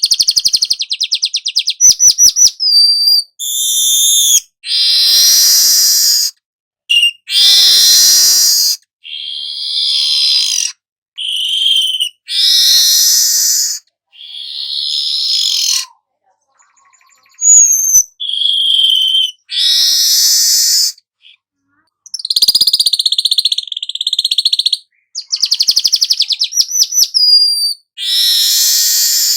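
Weaver (manyar kepala emas) singing: fast rattling trills, harsh buzzy sizzling phrases and short whistled notes, in bursts of a second or two with clean gaps between them.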